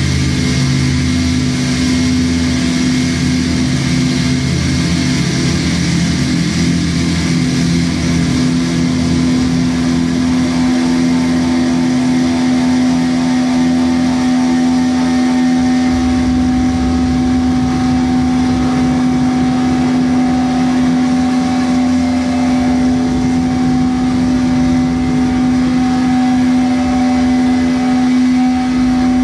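Live noise music: a loud, dense wall of noise over a steady low drone. A deep rumble underneath drops out about halfway, and a higher tone comes in near the middle, pulsing at first and then held.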